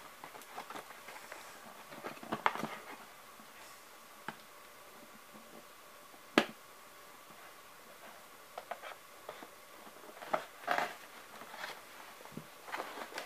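Scissors snipping at a doll's cardboard-and-plastic packaging, with scattered clicks and rustling of the box; the sharpest snap comes about six seconds in.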